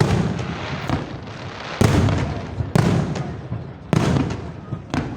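Fireworks salute: aerial shells bursting in loud bangs about once a second, five in all. Each bang trails off in a fading rumble and crackle.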